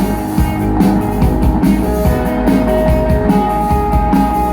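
A rock band playing an instrumental stretch of a song, with no singing. A held high note comes in about three seconds in.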